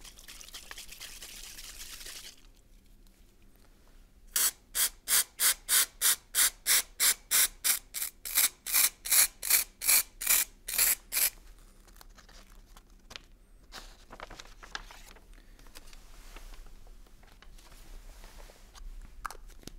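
Sponge dabbing white paint through a star stencil onto a kraft paper bag: a run of about twenty quick pats, some three a second, lasting about seven seconds. Softer rubbing and paper handling come before and after it.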